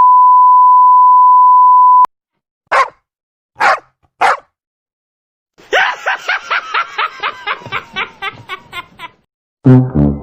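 A string of stock sound effects. First a steady high censor bleep lasting about two seconds, then three short dog barks. Next comes a fast run of about fifteen short yelping calls, each falling in pitch. A loud, low brassy blast starts near the end.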